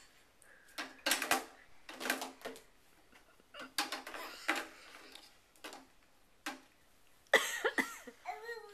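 Irregular clattering knocks and rattles from a toy ride-on car as a small child handles a doll on its seat and grips the steering wheel. A baby's babbling voice starts near the end.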